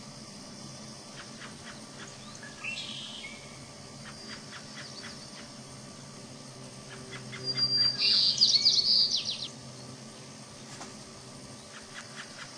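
Adult American robin calling to its fledgling: scattered short, sharp call notes, with a loud, fast run of high notes a little past the middle.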